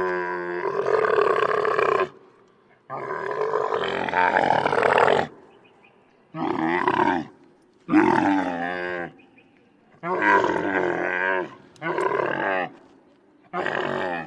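Camel bellowing in a series of about seven loud calls, each one to two seconds long with a wavering pitch and short pauses between them.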